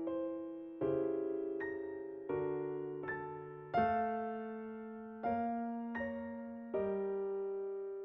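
Background music: slow, gentle electric piano chords, one struck about every second and a half and left to ring down.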